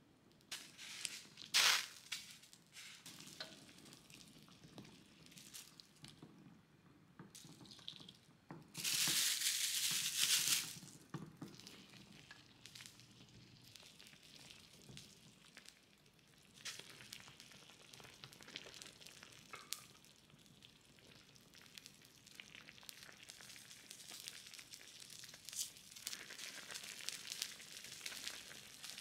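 Doenjang jjigae simmering and bubbling in a ceramic pot, with scattered soft clicks and taps as ingredients go in and a silicone spatula stirs. A louder rushing hiss lasts about two seconds, starting around nine seconds in.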